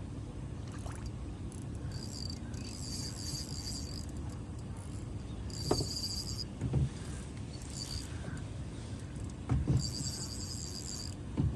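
Fishing reel buzzing in irregular high-pitched bursts while a hooked bass is being fought, with a few dull knocks between them.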